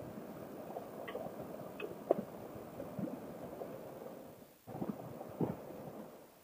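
Honda NC700X motorcycle ridden slowly on a gravel road: a low, uneven rumble of the parallel-twin engine and tyres on gravel, with a few sharp clicks, the loudest about two seconds in. The rumble briefly drops away a little past halfway.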